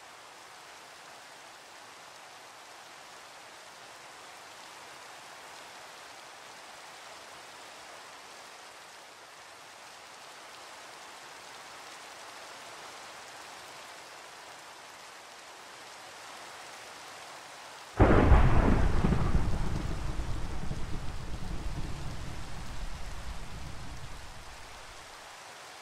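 Steady rain falling, heard as a soft even hiss. About eighteen seconds in, a sudden loud clap of thunder breaks out and rolls on as a deep rumble for about six seconds before fading back into the rain.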